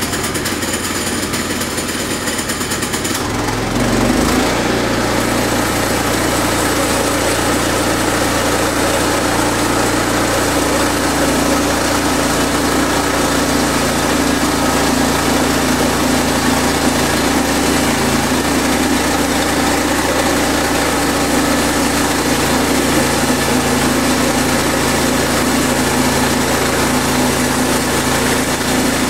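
Small gasoline engine revs up about three seconds in, then runs steadily at high speed.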